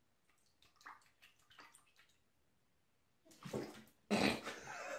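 Light splashing as a cat paws at the water in a toilet bowl, then a loud, sudden splashing a little after three seconds in as the cat goes down into the bowl.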